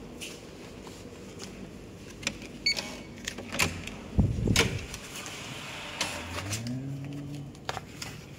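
Hotel room door being unlocked and opened: a short electronic beep from the keycard lock amid clicks of the latch and handle, then a heavy thud about four seconds in. Near the end a low drawn-out tone rises in pitch.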